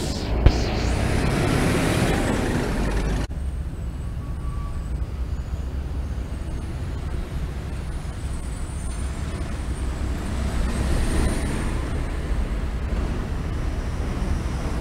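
City bus passing close by on a wet street, a loud rush of engine and tyre noise, opened by two sharp knocks; about three seconds in it cuts abruptly to a steady low rumble of buses and cars idling and moving through the intersection.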